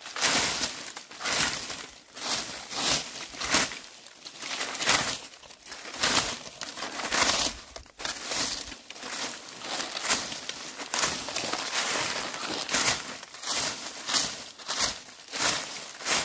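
Dry leaves being swept, one scratchy, crinkling stroke after another at about one a second.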